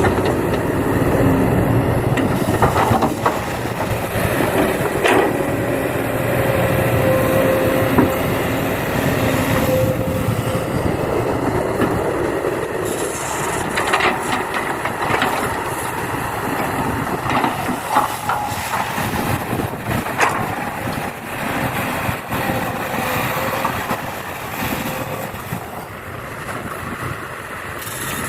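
Excavator working as it loads soil into a dump truck: steady mechanical running with scattered clatter and knocks.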